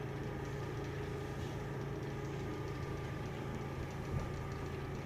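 A steady low hum of running machinery, with a faint bump about four seconds in.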